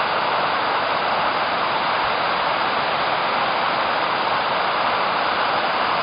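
Large tiered waterfall: a heavy volume of water pouring over its cascades in a steady, unbroken rushing noise.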